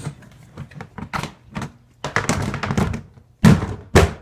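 Storage boxes packed with Nerf gear being handled: rustling and clattering, then two loud thunks near the end as a box is set down or knocked.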